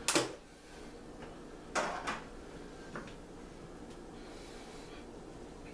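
Short plastic knocks and scrapes from a plastic margarine tub of seasoned flour being set down and its snap-on lid pulled off: the loudest right at the start, two more about two seconds in and a faint one a second later.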